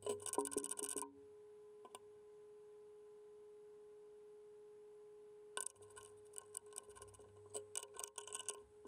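Steel spanners clinking and ringing as they are handled over the mill's aluminium table, then several more clinks as they are fitted onto the spindle's collet nut for a tool change. A faint steady tone hums underneath.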